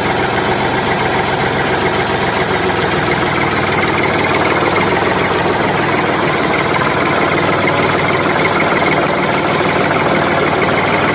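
Tractor engine sound running steadily at idle with a fast, even beat, as played for a miniature toy tractor.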